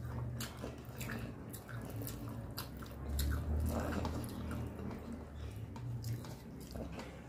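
Close-miked eating sounds: chewing with many small wet mouth clicks, along with the squelch of fingers mixing rice and dal on a steel plate.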